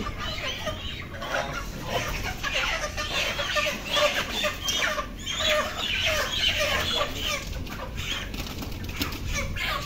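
A flock of broiler chickens squawking and clucking in a steady stream of short calls, with their wings flapping, as they are pulled from plastic crates and carried upside down by the legs.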